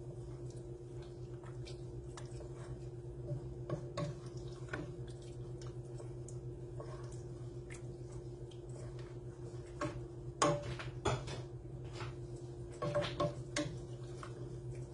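Wooden spoon stirring thick chili in a stainless steel pot, with scattered taps and knocks against the pot, a cluster about two-thirds of the way through and another near the end, over a steady low hum.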